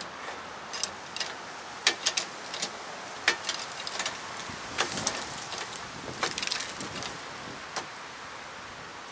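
Irregular sharp clicks and knocks, a dozen or so spread unevenly, the loudest about two and three seconds in, over a steady background hiss.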